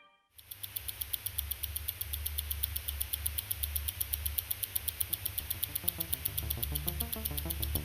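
Electronic music: a fast, even ticking, about seven ticks a second, over a steady low hum. A pulsing pattern joins about six seconds in.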